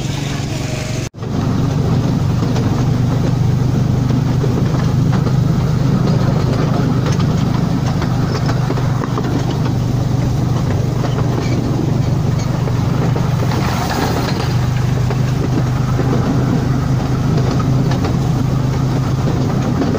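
Wulai's small narrow-gauge tourist train running steadily along its track, heard from aboard: a continuous low rumble and hum of the wheels and drive. It starts suddenly about a second in.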